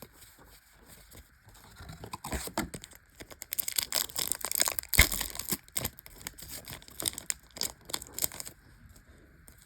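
Foil wrapper of a Yu-Gi-Oh Duelist Nexus booster pack crinkling and tearing open, a dense run of crackles that grows louder toward the middle, with a sharp snap about five seconds in.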